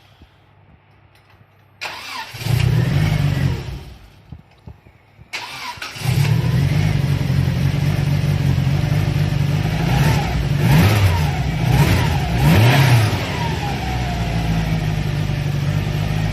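Subaru Impreza GC8's EJ20 flat-four engine being started: a first two-second burst that dies away, then a second start about five to six seconds in, after which it keeps running, with a couple of blips of the revs about ten to thirteen seconds in.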